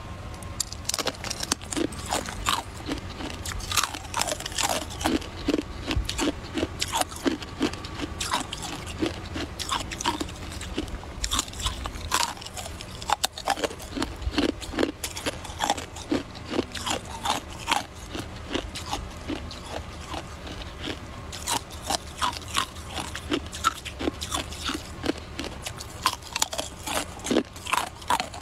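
A person biting off and crunching hard, clear icicle ice: an irregular string of sharp cracks and crunches, several a second.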